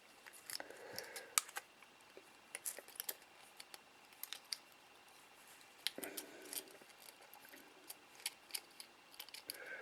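Faint, irregular small clicks and taps of tools and tiny parts being handled during close work on a small toy quadcopter drone, dozens of sharp ticks at uneven spacing.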